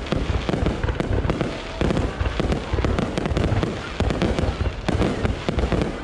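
Aerial fireworks going off in quick succession: a dense run of booming bursts and crackles with no pause between them.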